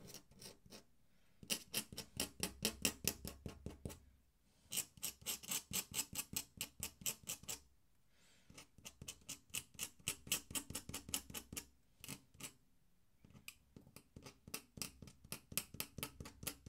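Steel dip-pen nib scratching across paper in Indian ink, in quick short strokes several a second. The strokes come in runs of a few seconds separated by brief pauses.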